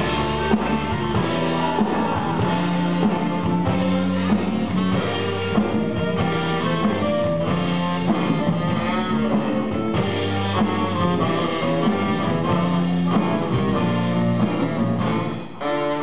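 Live band playing: a clarinet carrying the melody over electric guitar and a drum kit. The level dips briefly near the end.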